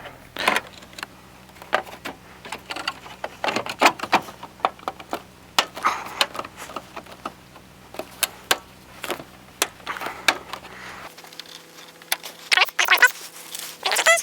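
Irregular clicks, clacks and light rattles of a car's tail light and its fasteners being handled and fitted back into place, with short scraping sounds in between.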